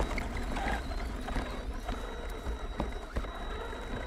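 Footsteps crunching on gravel, a few irregular clicks, over a low rumble of wind on the microphone and a faint steady high tone.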